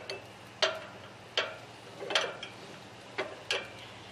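Steel U-bolts and their U-bolt plate clinking against each other as they are fitted over a trailer axle's leaf spring: about six sharp metallic clinks, unevenly spaced, each ringing briefly.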